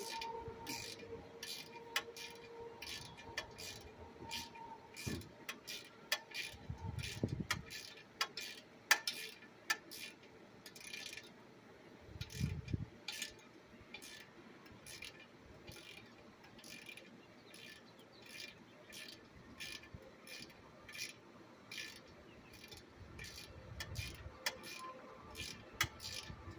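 Ratchet wrench clicking in quick runs as bolts are worked loose on an air compressor being stripped for scrap, with a couple of dull thumps.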